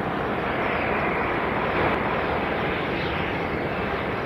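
Jet airliner's engines at takeoff power, a steady rushing noise from the turbofans as the plane lifts off the runway.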